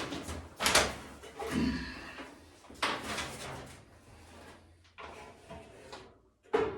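Knocks and clunks of a display-rack shelf being handled and fitted between the side panels while its bolts are started by hand, with three louder knocks in the first few seconds and quieter handling after.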